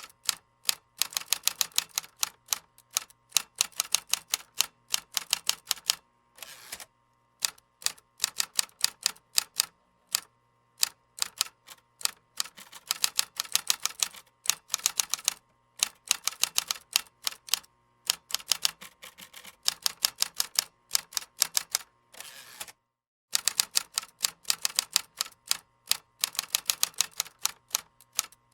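Computer keyboard typing: rapid runs of key clicks with short pauses between them, and a brief silence a little after two-thirds of the way in.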